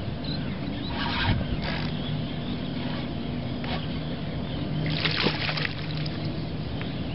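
Water splashing and sloshing around a small boat on calm water over a steady low hum. There are short splashes about a second in and near four seconds, and the loudest splash comes about five seconds in.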